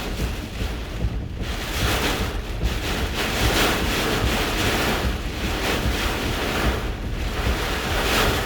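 Hurricane-force eyewall wind, gusting to around 75–80 mph, rushing and buffeting a vehicle. It swells and eases every second or two over a steady low rumble of wind on the microphone.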